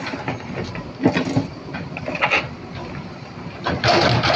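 Backhoe loader's diesel engine running steadily while its rear bucket digs and scrapes through broken concrete and rubble. There are several sharp crunches of bucket on debris, and the longest and loudest comes near the end.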